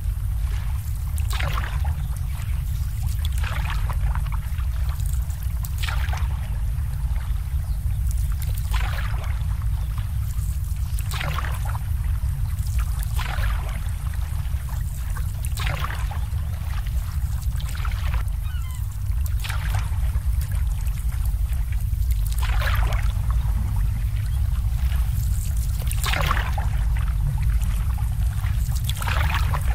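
Small harbour waves lapping and slapping every two to three seconds over a steady low rumble.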